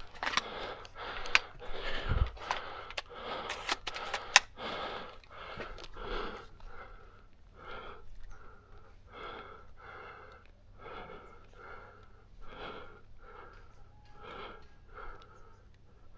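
A person panting hard close to the microphone, about one and a half breaths a second, fading slowly. Several sharp clicks in the first few seconds.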